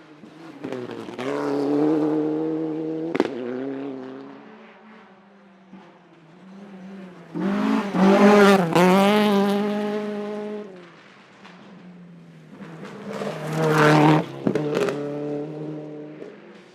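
Rally car engine revving hard in three surges that rise and fall in pitch, the loudest about eight seconds in. Two sharp cracks come through, about three seconds in and near the end.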